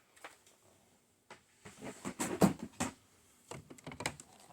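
Hard plastic CGC comic slabs being handled and set down: a scatter of light clicks and clacks, busiest and loudest around the middle.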